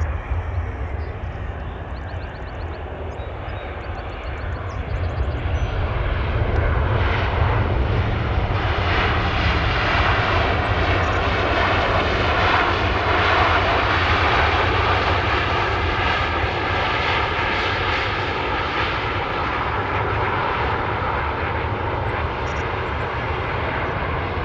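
Boeing 737-400 airliner arriving, its jet engines' noise over a steady low rumble. It swells about six seconds in and then slowly fades.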